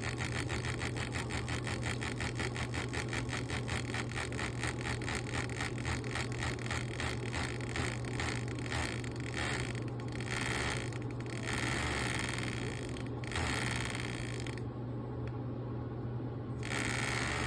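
Arduino-controlled fan clattering like a card in bicycle spokes, over a steady low hum. The rapid clicking slows as the speed is turned down, then comes in separate bursts with a pause of about two seconds near the end.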